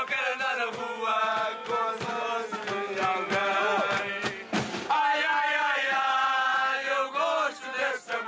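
A group of voices singing a marcha popular song together, with long held notes.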